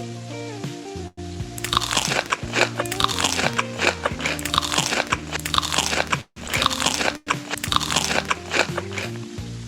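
Close-up crunchy biting and chewing of crisp food, starting about one and a half seconds in and going on in quick, irregular crunches, over background music.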